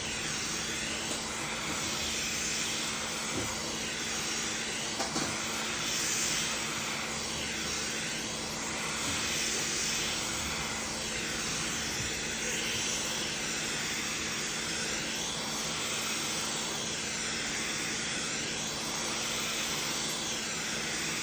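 Quick 861DW hot-air rework station blowing a steady rush of hot air with a faint low hum, swelling and easing slightly, as it heats a phone's glass screen to soften the adhesive for removal.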